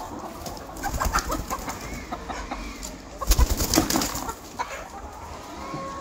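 A flock of Rhode Island Red and black hens clucking and crooning, with short rising-and-falling calls. About three seconds in there is a louder burst of rustling and thumps.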